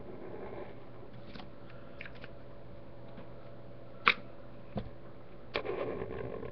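Felt-tip marker scratching on paper in short strokes, broken by a few sharp clicks and a soft thump; the loudest click comes about four seconds in, and scratching picks up again near the end.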